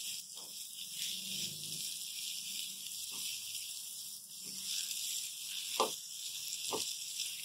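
Semolina-and-egg halwa sizzling in a steel pan as it roasts, a steady hiss from moisture still cooking out of the mixture. A silicone spatula scrapes the pan five times, the last two loudest.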